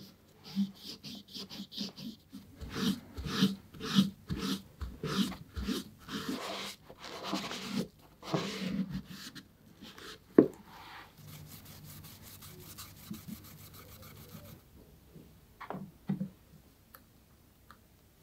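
A cloth rubbing over gold metallic leather pumps in quick, repeated strokes. About ten seconds in there is a single sharp knock, followed by quieter handling with a couple of light taps.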